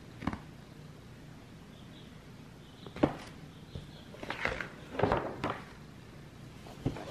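Pages of a large paper picture book being handled and turned: a few short rustles and soft taps, the longest rustling about four to five and a half seconds in.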